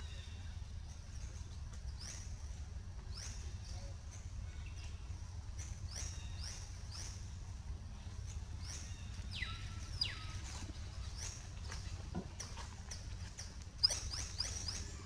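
Short, high-pitched chirping calls that fall in pitch, repeated roughly once a second, over a steady low rumble. Near the end there is one sharp knock.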